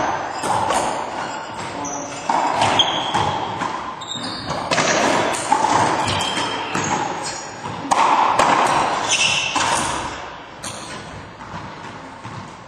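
Racquetball rally: the hollow rubber ball is struck by racquets and rebounds off the court's walls and floor, sharp echoing smacks coming roughly once a second.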